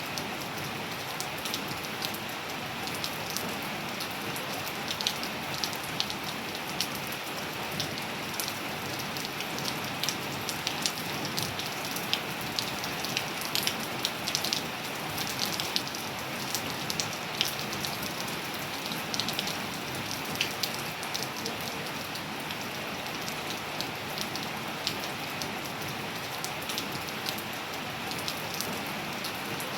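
Steady rain falling on surfaces: an even hiss with many sharp drop ticks scattered through it.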